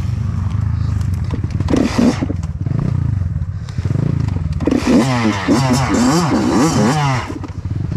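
Kawasaki KX85 two-stroke dirt bike engine running low on a tight trail, with a clatter of knocks about two seconds in, then revved up and down in quick blips for a couple of seconds.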